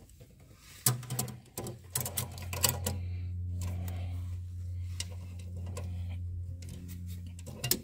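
Ratcheting wrench clicking as nylock nuts are run down on the A/C compressor bracket studs. From about three seconds in a steady low hum runs under the clicks until near the end.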